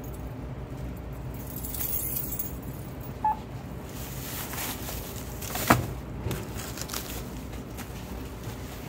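Handling at a self-checkout: a thin plastic shopping bag rustling as items are put into it, with one short beep from the checkout scanner about three seconds in and a sharp knock a little before the six-second mark.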